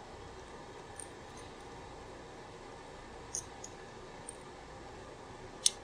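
A few faint, light clicks and one sharper click near the end as a pick taps and pushes the steel valves in a 200-4R transmission valve body, checking that they slide freely in their bores.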